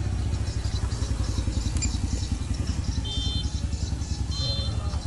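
A small engine running with a fast, even low throb. Short high tones come in about three seconds in and again shortly before the end.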